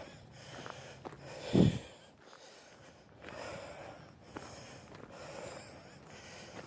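A person breathing close to the microphone while walking, in a few long breaths, with one loud low bump about a second and a half in.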